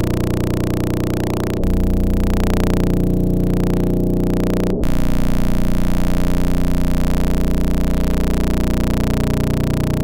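Synthesized spaceship ambience: a steady low electronic hum layered over a hiss of white noise. It breaks off for a split second and comes back slightly louder, about one and a half seconds in and again about five seconds in.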